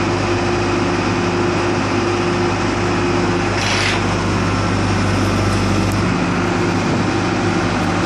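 Bell backhoe loader's diesel engine running steadily while it holds a suspended load, with a short hiss about four seconds in.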